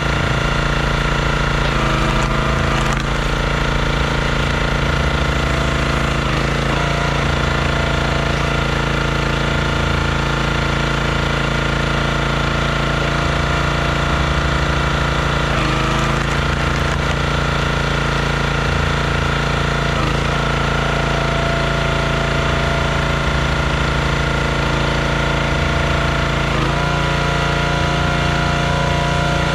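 Small gas engine of a Performance Built hydraulic log splitter running steadily, its note dipping briefly a few times as the ram is worked through logs.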